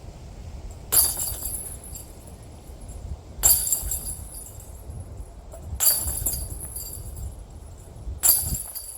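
Four sharp metallic jingles, evenly spaced about two and a half seconds apart, each with a short ringing and a low thud underneath.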